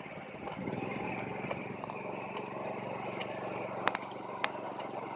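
Rice transplanter's small engine running steadily, getting a little louder about a second in, with two sharp clicks about four seconds in.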